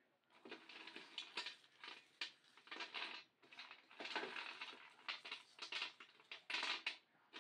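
Roasted peanuts rattling and scraping on a stainless steel tray as a hand rubs and stirs them to loosen their papery skins: a quick, uneven series of rustling, crackling strokes.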